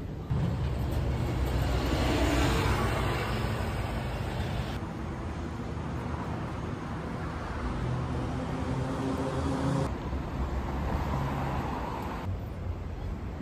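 Road traffic on a city street: a steady wash of car and engine noise with a low rumble. It swells about two seconds in and changes abruptly a few times.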